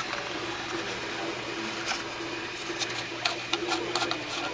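3D printer running, its motors giving a steady, slightly wavering whir. From about halfway through there is a run of light clicks and taps.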